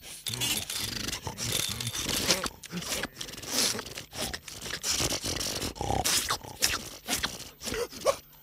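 Cartoon sound effects: a rapid, irregular run of scraping and rasping noises.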